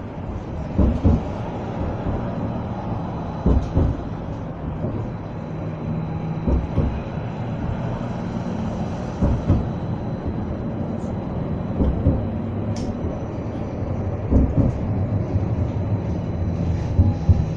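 Edinburgh tram running along a city street, heard from inside the car: a steady low rumble with a motor hum and a faint high whine. Short low thumps come every two to three seconds.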